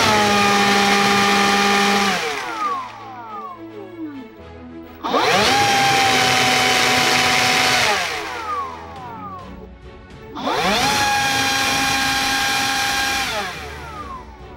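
Makita DUB362 brushless cordless blower run in three bursts of about three seconds at successive air-power settings. Each time its motor whines up to speed, holds a steady high whine with a rush of air, then winds down in pitch as the trigger is let go.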